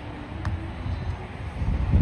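Wind buffeting the microphone in a steady low rumble, with one sharp hit about half a second in: a beach volleyball being struck on the serve.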